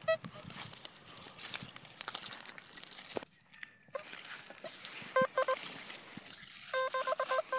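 Metal detector giving short runs of choppy, pulsing beeps, about five seconds in and again near the end, over the crunch and rustle of dry stubble underfoot. The detectorist reads the signal as tin.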